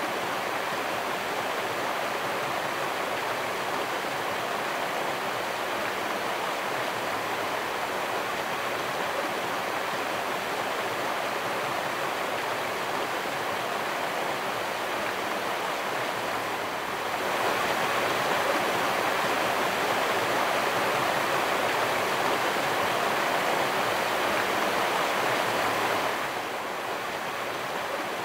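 Steady rushing of flowing water, even and without pauses. It gets louder in a step about two-thirds of the way through and drops back abruptly near the end.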